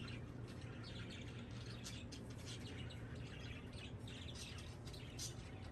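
Faint chirping of small birds: many short, high chirps scattered through, over a low steady hum.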